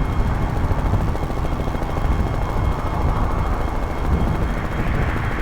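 Helicopter in flight heard from on board: the rotor's rapid low beating mixed with engine and wind noise, steady throughout.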